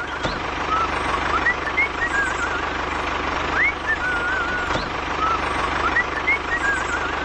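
A small motor runs steadily with a fast low rattle, under short rising chirps and warbling whistles that repeat every second or so.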